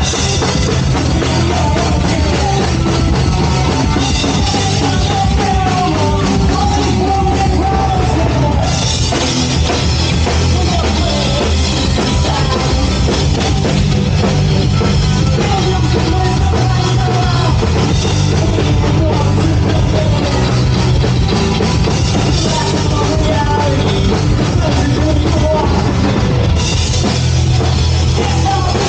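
Loud rock music with a pounding drum kit and a singing voice, playing without a break.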